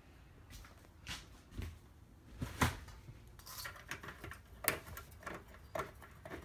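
Scattered light clicks and knocks, about eight of them at irregular intervals, with a brief rattle near the middle.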